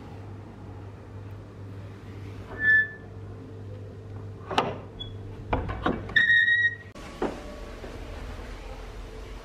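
A brass barrel bolt on a wooden door being slid back, with a cluster of sharp metal clicks and knocks, two short squeaks, and a last click as the door swings open.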